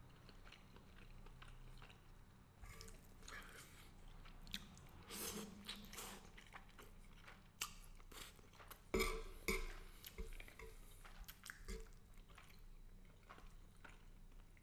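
Close-miked chewing and mouth sounds of someone eating garlic butter shrimp and angel hair pasta: irregular wet smacks and clicks, the loudest cluster about nine seconds in.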